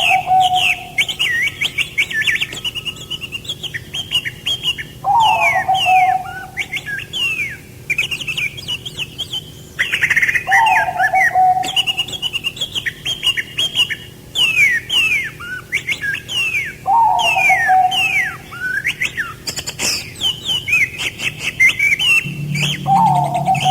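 Songbirds chirping, a dense run of quick falling whistles, with a lower call that comes back about every six seconds.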